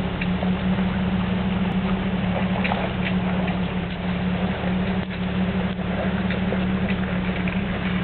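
Engine idling steadily close by, a constant low hum, with scattered small ticks and rattles.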